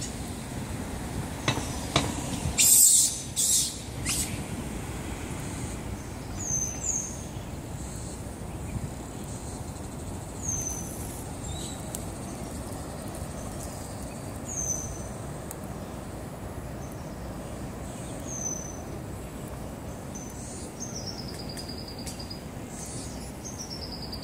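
A bird calling: short, high chirps that slide downward, repeated every few seconds, one longer falling call near the end, over steady background noise. A cluster of loud knocks about two to three seconds in is the loudest sound.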